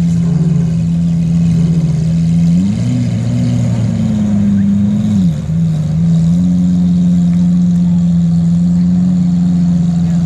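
A car engine idling steadily, revved up about three seconds in and held there for a couple of seconds, then dropping back to idle.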